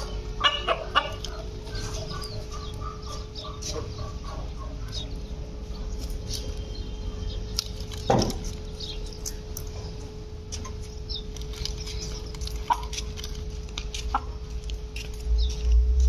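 A hen clucking: a run of quick clucks in the first few seconds and one louder call about eight seconds in, over scattered small clicks and a faint steady hum. A low rumble comes in near the end.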